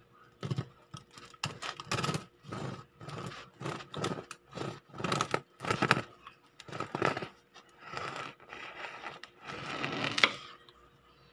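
Serrated bread knife sawing back and forth through a crusty sourdough loaf, with about two rasping strokes a second that stop shortly before the end.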